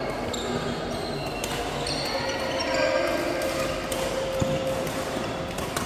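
Badminton rally: rackets hitting the shuttlecock with sharp clicks and shoes squeaking in short high chirps on the court, echoing in a large hall.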